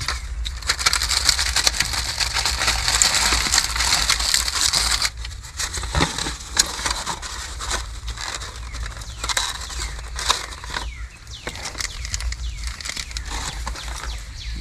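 Crinkling and rustling of plastic packaging being handled, dense for the first five seconds or so, then broken into scattered crackles and knocks.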